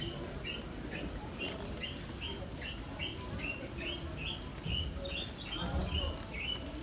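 Squeaky shopping cart wheel rolling, giving a short high squeak about three times a second in an even rhythm.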